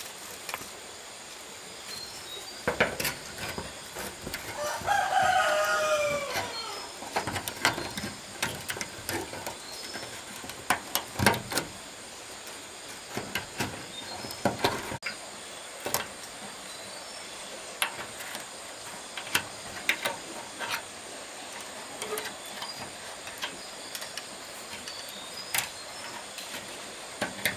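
A rooster crows once, about five seconds in. Scattered sharp knocks and taps sound throughout, with a steady hiss underneath.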